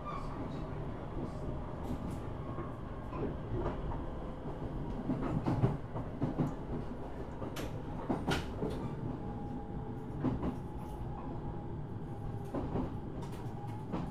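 Running sound inside a JR East 701 series electric motor car (KuMoHa 701-5009): a steady wheel-on-rail rumble with a faint steady whine and irregular sharp clicks and knocks from the track.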